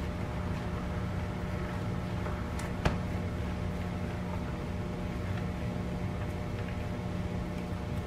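Steady low mechanical hum, with a plastic spatula stirring fried rice in a glass bowl: faint scraping and light clicks, and one sharp click against the glass just under three seconds in.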